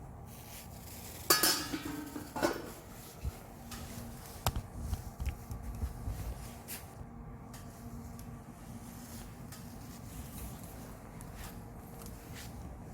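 Metal clanking: two sharp, ringing clangs a little over a second apart, followed by several lighter knocks and clinks of metal being handled.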